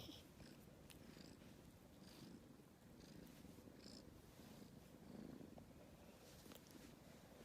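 Calico kitten purring faintly, a low, soft rumble that swells and ebbs a little.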